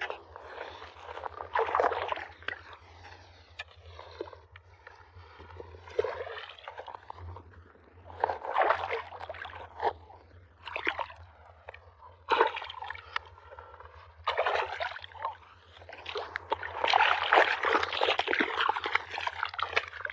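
A hooked fish splashing and thrashing at the water's surface in irregular bursts as it is played in to the bank. The splashing is loudest in the last few seconds.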